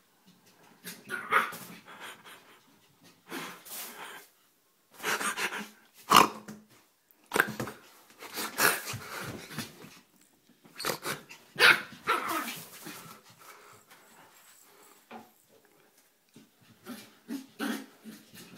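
A small Yorkshire terrier barking and growling in several bursts with short pauses between, worked up in feisty play.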